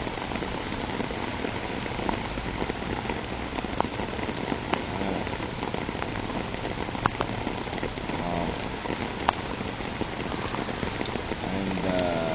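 Heavy rain falling steadily, with scattered sharp drops or drips striking close by. A short pitched sound comes near the end.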